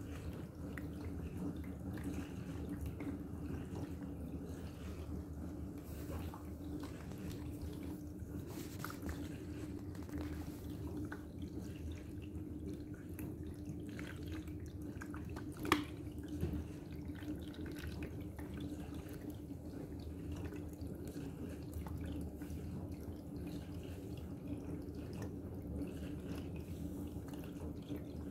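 Pet drinking fountain running: water trickling and dripping over the spout into the basin, over the steady hum of its small electric pump. One sharp click a little past halfway through.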